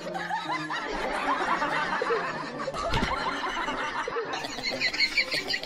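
Snickering and chuckling laughter, with one short knock about three seconds in.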